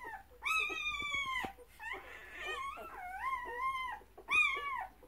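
Dog whining: a series of high-pitched, drawn-out whimpering cries, each up to about a second long, with the loudest near the end.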